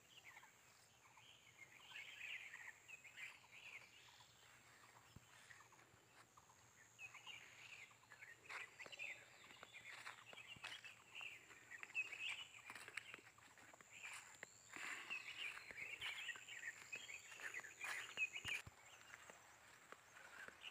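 Faint outdoor ambience: small birds twittering on and off, with a faint steady high whine and a few light footstep clicks.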